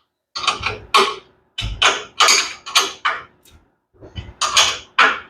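Ratchet wrench being worked in short strokes to tighten bolts, with about eight quick rattling bursts of clicking at an irregular pace.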